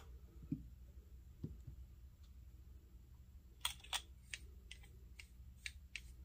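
Ink bottle set down on the desk with a couple of soft knocks, then a run of about eight small, sharp clicks a third to half a second apart as the fountain pen's acrylic barrel is twisted back onto its section.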